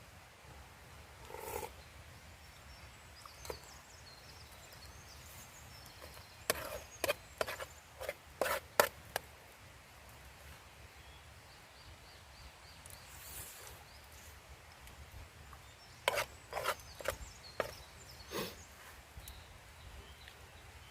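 Sharp wooden knocks and cracks, like wood being struck or broken, in two quick runs of about half a dozen strikes each: one about six seconds in, the other about sixteen seconds in.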